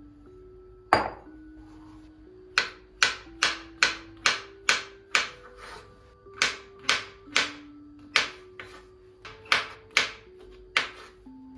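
Kitchen knife chopping on a cutting board: one sharp knock about a second in, then a steady run of sharp knocks about two a second, over soft background music.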